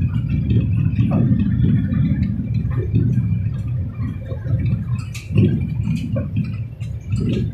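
Vehicle driving, a steady low rumble of engine and road noise heard from inside the cabin, with a few light knocks or rattles.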